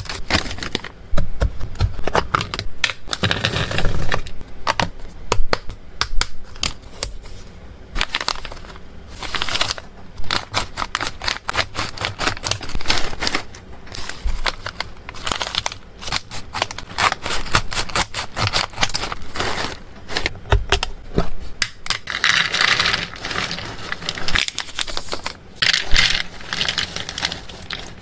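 Foil pet-treat bags cut with scissors and crinkled, with many quick irregular clicks as small dry treat sticks are poured and rattle into a plastic container.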